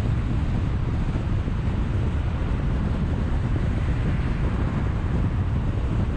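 Steady wind rush on the microphone and low road rumble from a car travelling at about 80 km/h on a highway.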